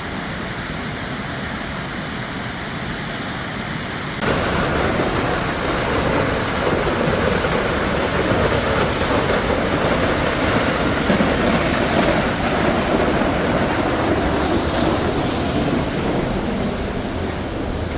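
Steady rush of falling water, jumping suddenly louder about four seconds in and staying loud.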